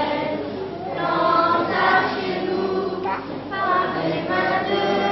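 A children's choir singing, with long held notes.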